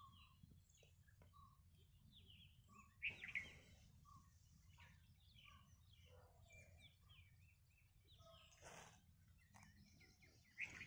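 Faint birds chirping over a low background hum, with short scattered notes throughout. Two louder calls come about three seconds in and again near the end.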